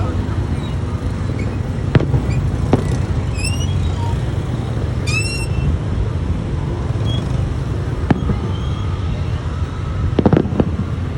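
Fireworks going off: single sharp bangs about two and three seconds in and again around eight seconds, then a quick cluster of pops near the end. Short rising whistles are heard in between, over a steady low rumble of background noise.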